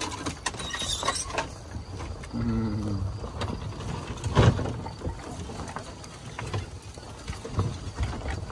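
A vehicle moving slowly over rough grassy ground, with a steady low rumble and scattered rattles and knocks. There is a short low hum about two and a half seconds in and one loud thump about four and a half seconds in.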